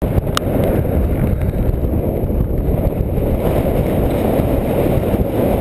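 Strong wind buffeting the microphone: a loud, continuous, rumbling roar, with one brief sharp click about half a second in.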